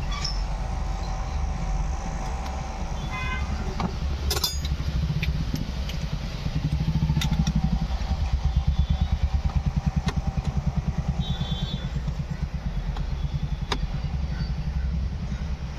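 Low, steady rumble of an idling engine, with a fast even throb through the second half. A few sharp metallic clicks come over it.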